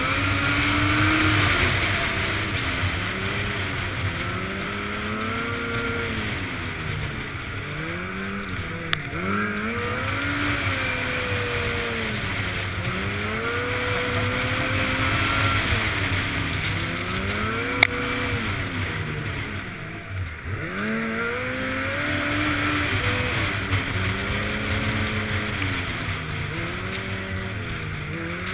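Snowmobile engine running at speed, its pitch rising and falling again and again as the throttle is worked, with steady wind rush over the microphone. A sharp click sounds about 18 seconds in.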